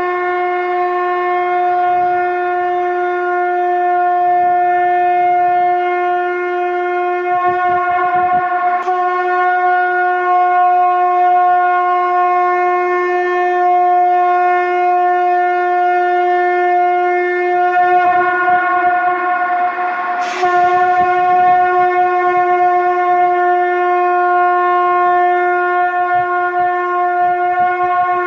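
Conch shell (shankh) blown in long held notes at one steady pitch, with a short break about nine seconds in and another about twenty seconds in.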